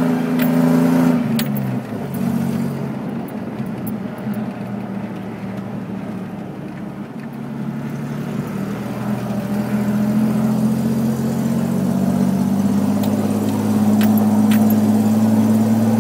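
Off-road 4x4's engine heard from inside the cabin while driving on soft sand. Its tone drops about a second in and stays lower and quieter for several seconds, then climbs steadily as the engine pulls hard again. A few sharp clicks from the cabin come near the start and again near the end.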